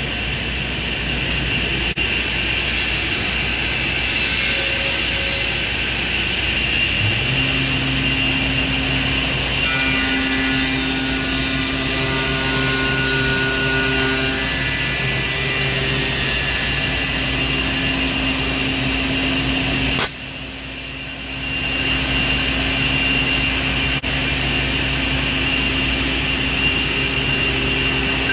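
PADE CNC tenoning machine running its cutting program on a wooden rail: a steady machine din, with a motor hum rising into a steady note about seven seconds in and the router spindle cutting the wood. The noise drops briefly about twenty seconds in, then runs on.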